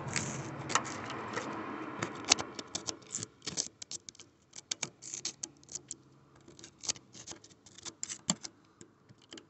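Screwdriver tip scraping and picking at rust on a WD-40-soaked suspension strut top mount and its nut, a run of irregular small metallic clicks and scratches.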